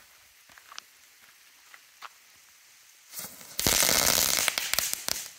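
Small crackling-salute ground firework going off: a few faint ticks, a short hiss about three seconds in, then a loud burst of dense, rapid crackling lasting under two seconds that cuts off suddenly.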